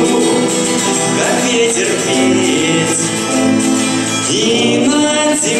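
A teenage boy's voice singing a song into a microphone, with acoustic guitars accompanying.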